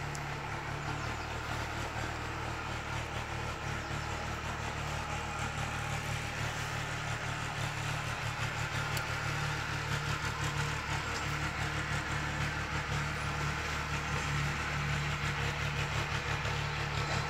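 A motor or engine running steadily with a low hum that holds level throughout.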